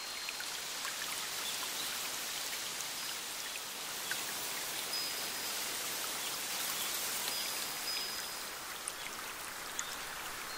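Small forest stream running steadily over stones, a close, even splashing full of fine droplet ticks. A few faint, brief high whistles sound about halfway through and again a little later.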